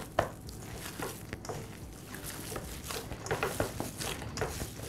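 Minced beef, bread and onion being kneaded, soft wet squelches and pats at an uneven pace with a few sharper clicks.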